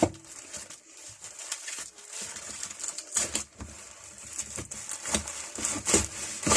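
Rustling packaging and several sharp knocks as metal pipe wrenches are handled and set down one after another.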